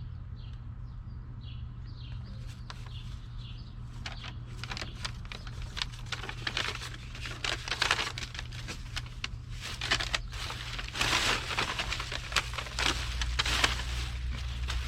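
Paper and trash rustling and crinkling as it is handled, in a dense run of irregular crackles that starts about four seconds in, over a steady low hum. A bird chirps repeatedly at the start.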